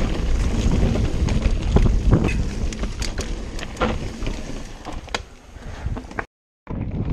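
Mountain bike riding fast down a dirt trail: tyres rumbling over the ground and wind buffeting the microphone, with frequent sharp clicks and rattles from the bike over bumps. The sound cuts out for a moment about six seconds in.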